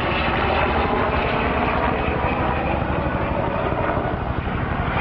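Airplane flying overhead, its engines running steadily.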